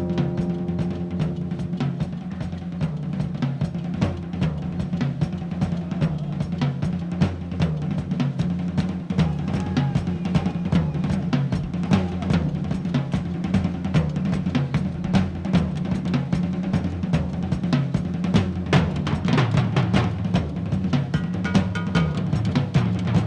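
Jazz-fusion band playing live, led by a busy drum kit of kick, snare and rimshots over a low bass line, with no saxophone in this passage.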